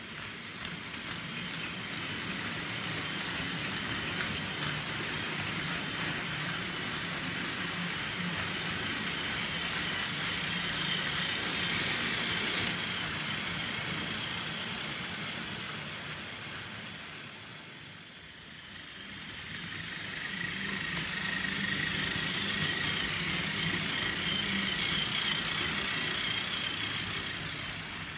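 Plarail battery-powered toy trains running on plastic track: small electric motors whirring and wheels rattling. The sound swells twice as a train passes close, loudest about twelve seconds in and again near the end.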